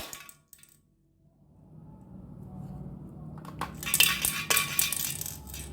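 A burst of sharp clicks and light clinking rattles from hard plastic and metal parts, starting about three and a half seconds in, typical of a spring airsoft pistol being handled.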